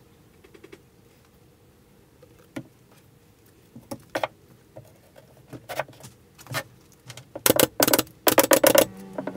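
Air-powered pin nailer firing a quick run of sharp shots about seven and a half seconds in, driving 0.6 mm pins to fix a plywood shelf support. Before that, a few scattered knocks of wooden pieces being handled and set down.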